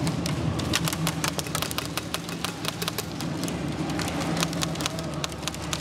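Airsoft guns firing, an irregular string of sharp clicks several times a second, over a steady low hum.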